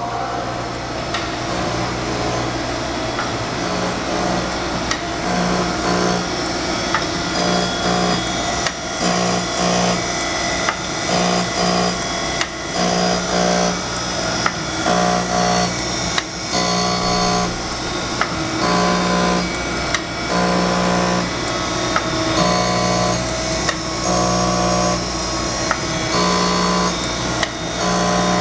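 Harig 618W surface grinder running under automatic hydraulic feed: a steady spindle-motor hum, and the wheel grinding a round metal part on the magnetic chuck. The grinding swells in regular bursts about every second as the table carries the part back and forth under the wheel, with occasional short sharp ticks.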